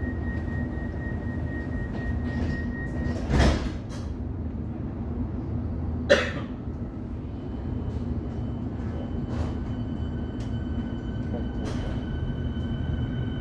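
Inside a Melbourne Metro suburban electric train: the carriage's steady low rumble with a thin high whine. There is a loud burst of noise about three and a half seconds in and a sharp knock about six seconds in.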